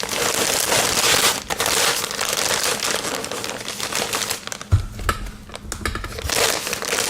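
Packaging on a courier parcel crinkling and crackling as it is handled, with a short low thump about two-thirds of the way through, then quieter rustling.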